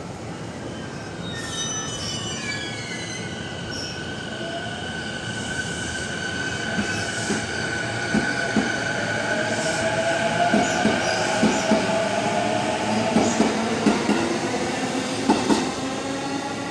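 E233 series 0 electric multiple unit train moving along the platform. High steady squealing tones and a motor tone that glides up in pitch sound over it, with a run of sharp clacks over the rail joints in the second half.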